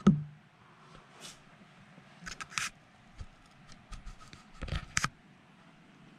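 Handling noises: a sharp knock just after the start, then scattered light clicks and taps, and a quick cluster of knocks about five seconds in, as a camera is moved about a glass enclosure.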